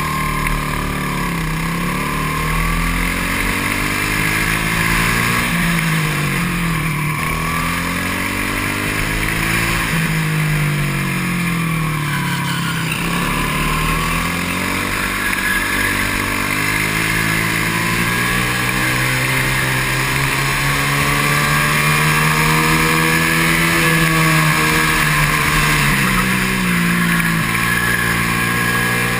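Onboard sound of a four-stroke rental kart engine at racing pace, its revs climbing along the straights and dropping back into the corners several times, then holding high and steady for a long stretch in the second half.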